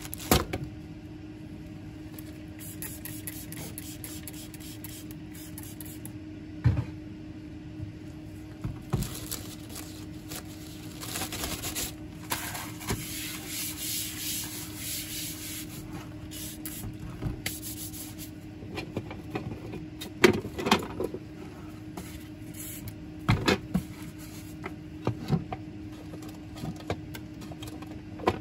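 A disinfectant-wet paper towel rubbing across a laboratory bench top, a swishing wipe that lasts several seconds, with a few sharp knocks of small tools and objects set down on the bench, over a steady low hum.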